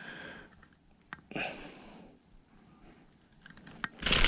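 Faint breathing and hand-handling sounds while a small bass is worked off a fishing lure, with a sharp click about a second in. Near the end comes a louder, brief rustling burst as the fish thrashes free of the lure.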